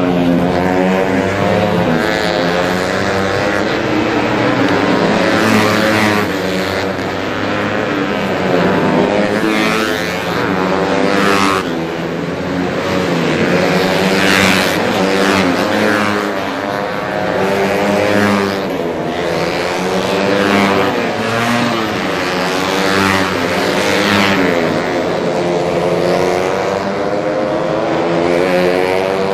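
Several racing underbone motorcycles at full throttle, passing one after another. Their engines rev hard and shift gears, so the pitch keeps rising and falling as each bike goes by.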